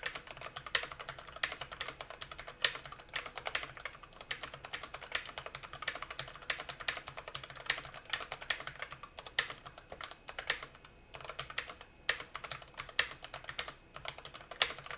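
Typing on a Zifriend ZA98 mechanical keyboard: a fast, steady run of key clicks as a sentence is typed, with a couple of brief pauses near the end.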